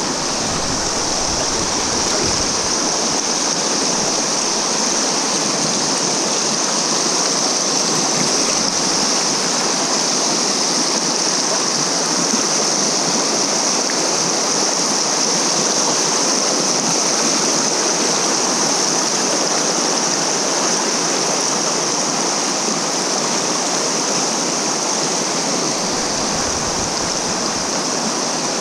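Steady rush of fast river current around a drift boat's hull, an even hiss with no breaks.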